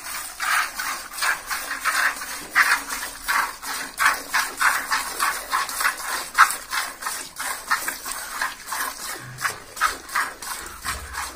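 A cow being milked by hand with both hands: streams of milk squirting into a plastic bucket that is partly full of milk, a rhythmic swishing about three squirts a second.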